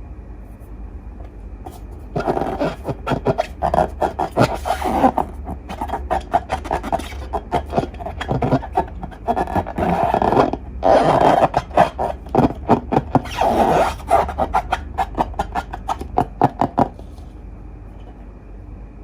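Slime and long balloons being handled and worked by hand: a dense run of rapid crackling, scraping clicks that starts about two seconds in, comes in several bursts and stops a couple of seconds before the end, over a steady low hum.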